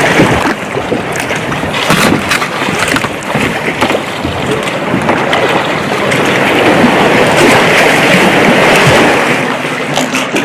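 Water splashing and sloshing around a kayak, with knocks from handling on the hull and wind on the microphone; the splashing swells about two-thirds of the way through.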